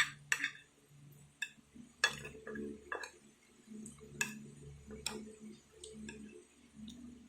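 Sparse light clicks and taps of a spoon against a plate and teeth as a first bite is taken, strongest near the start and around two and four seconds in.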